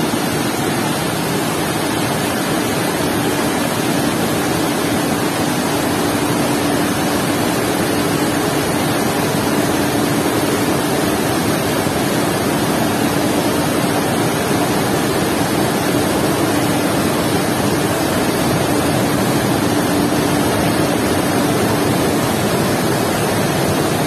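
Floodwater rushing down a dam spillway chute from an open gate, heard from the spillway's edge: a loud, steady, unbroken rush of water.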